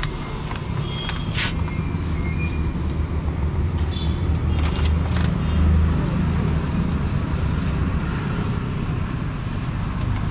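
Road traffic rumbling steadily, with vehicles and motorbikes passing, and a few short clicks over it.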